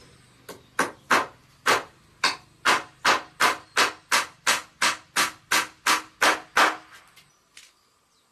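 Hammer driving a nail into a wooden board: a steady run of about seventeen sharp blows, roughly three a second, stopping about seven seconds in.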